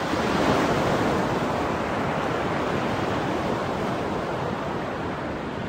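Ocean surf washing steadily onto a beach.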